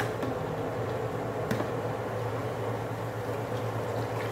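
Steady low mechanical hum, with a couple of light clicks from a metal spoon scraping coconut milk out of a plastic bowl into the pot.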